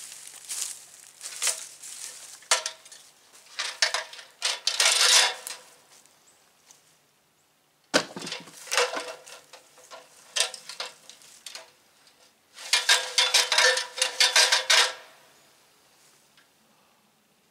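Aluminium extension ladder clanking and rattling as it is carried and stood up, with one sharp knock about eight seconds in as it meets the wall. Near the end, a dense run of metallic rattling clicks lasting about two seconds as the upper section is slid up.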